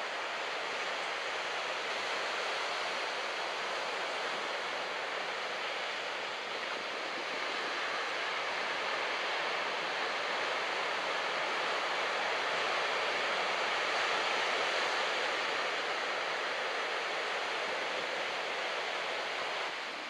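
Ocean surf breaking and washing onto a beach: a steady rushing hiss that grows a little louder about halfway through.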